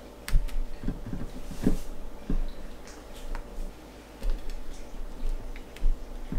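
Fish cake and crab stick skewers being dipped and moved around in beaten egg on a ceramic plate: scattered light clicks and taps of the skewers and food against the plate.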